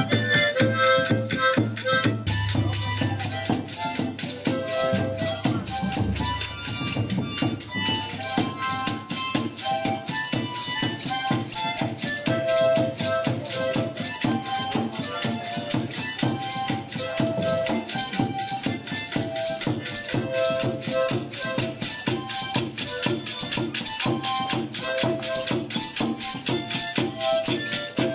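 Music driven by shaken rattles keeping a fast, steady beat, with short pitched melody notes over it.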